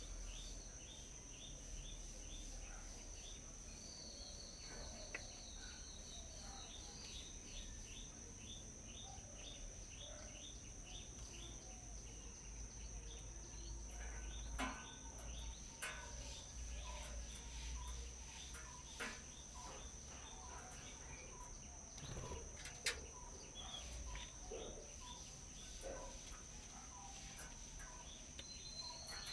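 Small birds chirping in long runs of quick repeated notes, with a fast trill a few seconds in, over a steady high insect drone. A few sharp taps come in the second half.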